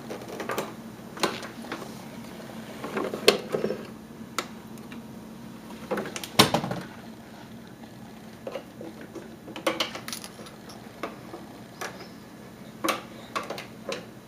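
Scattered knocks, clinks and rattles of household objects being moved or bumped, with the loudest knocks a few seconds in and again about halfway through, over a faint steady hum.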